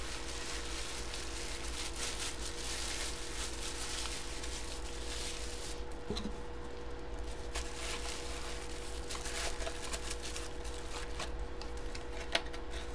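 Faint rustling and handling of a cardboard trading-card box and its contents, over a steady faint hum, with a light click about six seconds in and another near the end.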